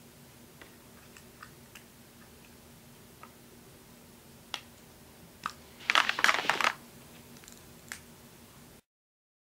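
Plastic eyeshadow compacts being handled and set down: scattered light clicks, then a short burst of clattering about six seconds in, with one more click near the end.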